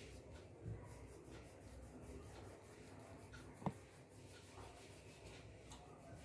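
Faint, rapid scratching strokes of an oil pastel on paper, with one short sharp click about three and a half seconds in.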